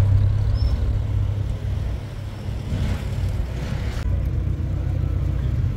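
Motor vehicle running: a steady low engine and road rumble, with a brief rush of higher noise about three seconds in that cuts off suddenly.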